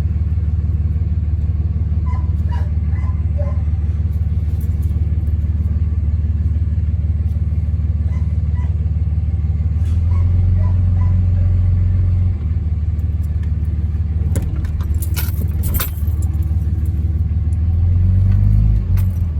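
A motor vehicle's engine running steadily at low speed, getting louder for a couple of seconds about ten seconds in and again near the end, with light rattles and clicks over it.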